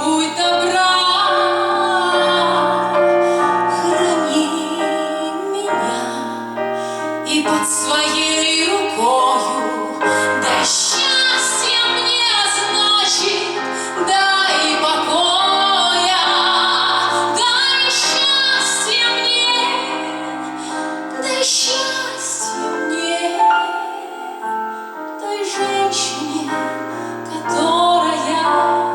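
A woman singing a melody with instrumental accompaniment.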